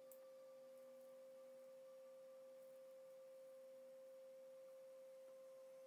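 A faint, steady pure tone at 528 Hz, the Solfeggio frequency, played as a background drone, with weaker tones an octave below and above it.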